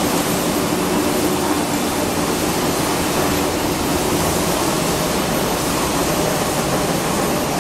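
1250 double twist stranding machine (buncher) running, a loud steady rushing noise from its spinning rotor inside the enclosure, with a faint hum that fades out a few seconds in.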